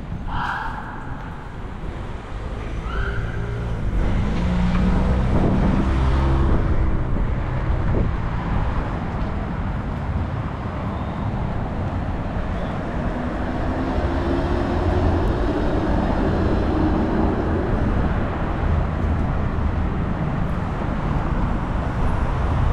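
Street traffic noise in a city: a steady low rumble of passing cars and other vehicles, with a rising motor tone from a vehicle pulling away about two-thirds of the way through.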